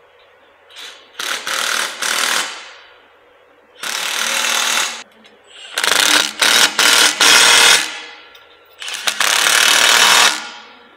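Impact wrench running in repeated bursts of about one to two seconds each, with short pauses between them, driving bolts.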